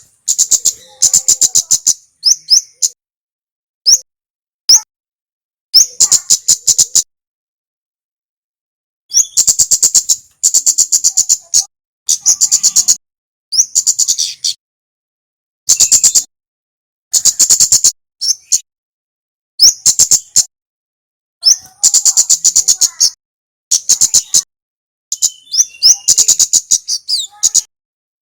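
Song of a male kemade (kemlade merah), given in repeated bursts of rapid, high-pitched twittering notes, each phrase about half a second to a second and a half long, with short pauses between.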